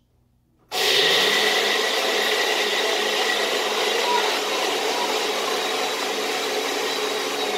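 Countertop blender motor switching on abruptly about a second in and running steadily at high speed with a constant whine, grinding cookies into a fine dust.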